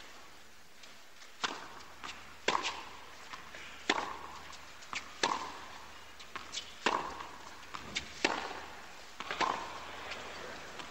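Tennis ball hit back and forth by rackets in a rally: a serve and then about seven sharp hits, roughly a second and a half apart, with fainter ball bounces between them.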